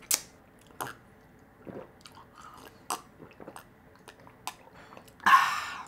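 Close-up chewing of food, with sharp wet mouth clicks scattered through. A short, louder noisy sound comes near the end.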